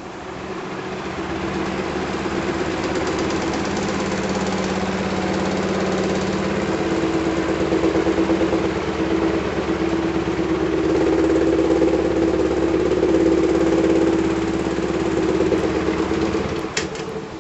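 1942 16-inch Westinghouse Power Aire electric fan running with a broken blade: the unbalanced blades make the whole fan shake and rattle, a steady hum with a fast buzzing vibration that grows louder over the first few seconds. Near the end the sound briefly drops, with a few sharp clicks.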